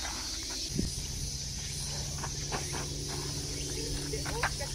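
Steady high-pitched drone of cicadas in the trees, with scattered footsteps on the dirt ground. A low steady hum comes in about a second in.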